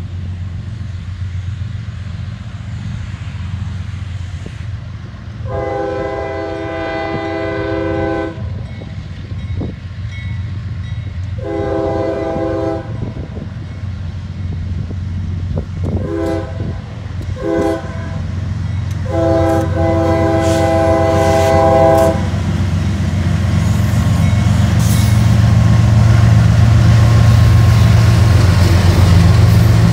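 Diesel locomotives of a loaded CSX coke train sounding a multi-chime air horn in the grade-crossing pattern of long, long, short, long over the steady rumble of their engines. The engines grow louder as they near, with sharp clanks in the second half.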